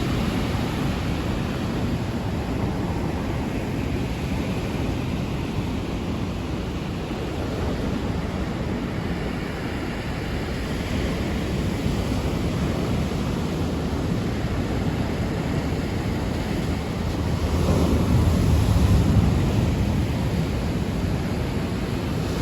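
Thunderstorm: a steady rush of rain and wind, with a low rumble of thunder swelling and fading about eighteen seconds in.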